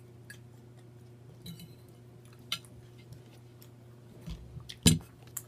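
Eating noises at a table: scattered soft clicks and taps of food and utensils being handled, with one louder knock a little before the end, over a low steady hum.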